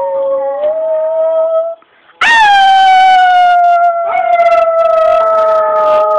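A dog howling: one long howl tails off just under two seconds in, then after a short breath a second howl starts loud, rises briefly and sinks slowly in pitch as it is held.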